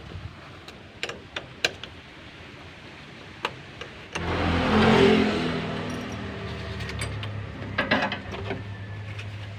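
A motor vehicle engine comes on about four seconds in, swells for about a second, then keeps running steadily. Before it, light metallic clicks of a wrench on battery terminals.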